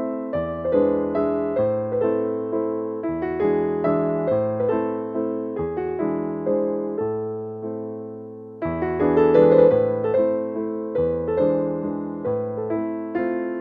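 Background piano music: a gentle melody of struck notes that ring and die away. It thins out and fades past the middle, then picks up again, louder.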